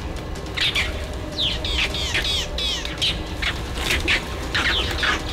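Shrill animal calls: many short, overlapping high-pitched cries, several of them falling in pitch, coming thickly through the middle and again near the end.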